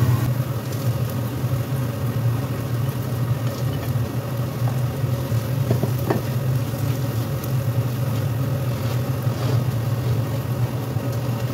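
Dried anchovies and petai beans frying in sambal in a non-stick pan, sizzling as a spatula stirs and scrapes them, over a steady low hum.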